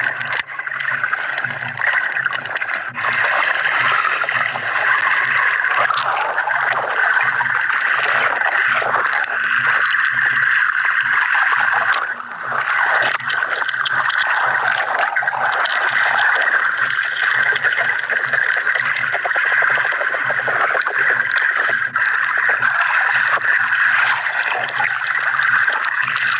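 Steady muffled water noise with gurgling and splashing, heard through a camera held underwater, dipping briefly about halfway through.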